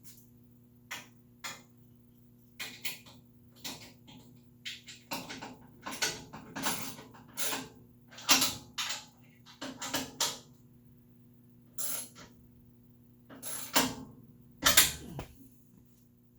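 Bolts on a table saw's rear rail being tightened with a hand tool: irregular clicks and scrapes of metal on metal, bunched in the middle, with the loudest pair near the end.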